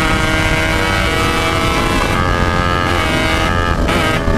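Two-stroke single-cylinder engine of a Yamaha RX-King 135cc motorcycle running through a Packing Power exhaust. The sound is loud and steady, with small shifts in pitch.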